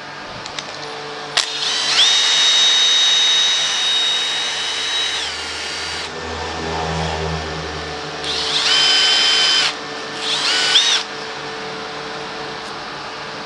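Cordless power drill running in three goes: one long run of about three and a half seconds, then two shorter bursts. Each run spins up to a steady high whine and winds down when released.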